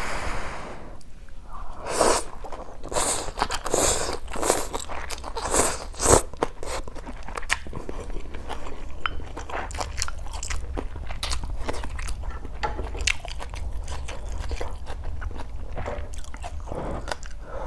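Close-miked eating of instant noodles with water spinach: a slurp of noodles at the start, then steady chewing full of small wet clicks and crunches, a few louder ones early on.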